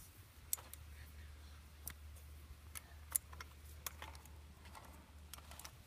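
Faint, irregular clicks and ticks over a low steady hum.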